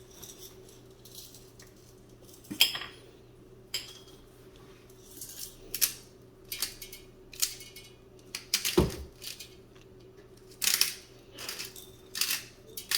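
Salt grinder being cranked in short, irregular grinding bursts, with one sharp knock about nine seconds in.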